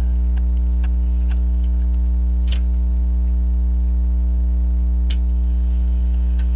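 French crystal regulator clock's open escapement with jewel-like pallets ticking faintly and unevenly, a little out of beat. A loud steady mains hum underlies it, from a ground loop between the AC-powered camcorder and its microphone.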